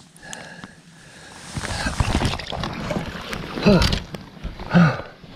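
Rushing noise of water and wind on the microphone, with scattered knocks, while a hooked bass is fought out from under a submerged limb at the boat's side. It grows louder about a second and a half in, and two short cries from the anglers come near the end.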